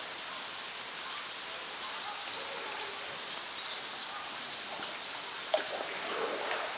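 Steady outdoor background hiss with faint distant voices and light water splashing from a polar bear swimming and mouthing a floating toy. A single sharp snap about five and a half seconds in.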